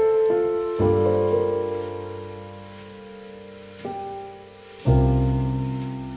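Piano music playing back through a pair of small bass-reflex speakers with Markaudio 4-inch full-range drivers: single struck notes and chords ring and fade, with deep bass chords coming in about a second in and again near five seconds.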